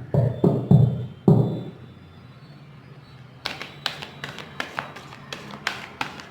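A deck of oracle cards being shuffled by hand: a few dull thumps near the start, then a run of quick, irregular card clicks from about halfway on.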